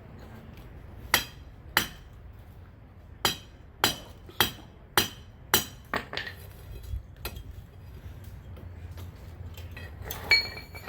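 Hammer blows on a steel chisel, cutting into the clay and brick wall of a small tatara smelting furnace to break it open: about eight sharp metallic strikes in the first six seconds, a few lighter knocks, then one strike near the end that leaves the metal ringing.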